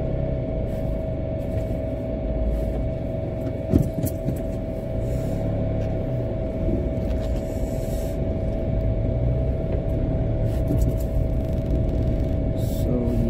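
Car cabin while driving: a steady low engine and road rumble with a constant mid-pitched hum, and a single thump just under four seconds in.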